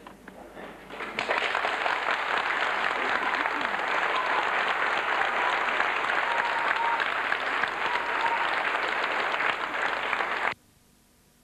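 Audience applause: a few scattered claps that swell into full, steady clapping about a second in, then cut off abruptly near the end where the recording breaks.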